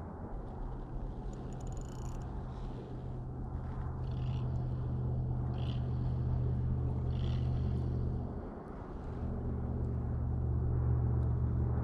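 A low, steady engine drone with several stacked hum tones sets in just after the start and grows slightly louder. It drops out briefly about eight and a half seconds in, then returns, with a few faint scattered clicks over it.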